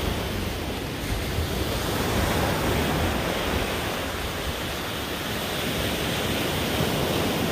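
Sea waves washing onto a sandy beach: a steady rush of surf that swells a little and eases.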